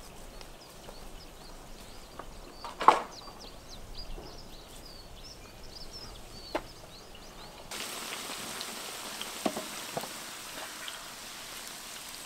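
Small birds chirping rapidly over quiet outdoor air, with one sharp knock about three seconds in and a fainter click later. A little before eight seconds this gives way to a steady sizzle of sliced bell peppers and carrots frying in hot oil in a cauldron.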